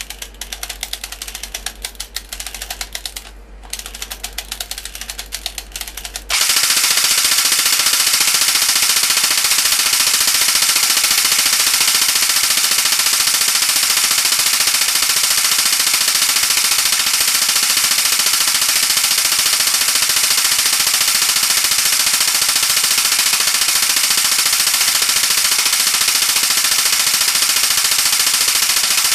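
Prototype Shoei MG42 airsoft electric gun with a high-cycle motor firing on full auto. It starts as a fast stream of clicks with a brief break, then about six seconds in it jumps to a louder continuous burst at a very high rate that runs for over twenty seconds.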